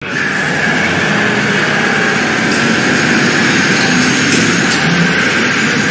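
Angle grinder running against metal, a steady high whine over a dense mechanical noise.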